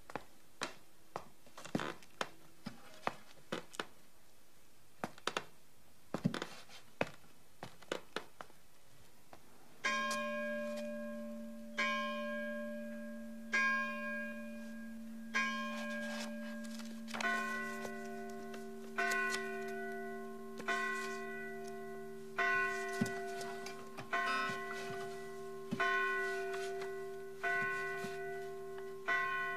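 Irregular clicks and taps for about ten seconds, then church bells tolling, one strike about every two seconds, each ringing on and fading, with a second bell joining about seven seconds later.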